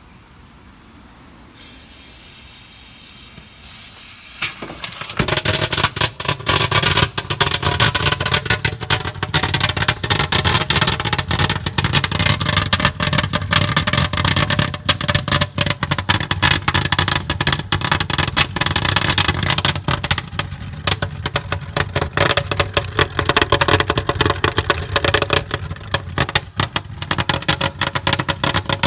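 Fireworks going off inside a microwave oven: a hiss, then from about four seconds in a dense, rapid crackling that goes on, easing briefly about two-thirds of the way through, over a steady hum.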